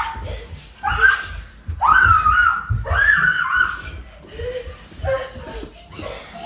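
High-pitched voice laughing and squealing in several drawn-out cries about a second apart, fainter near the end.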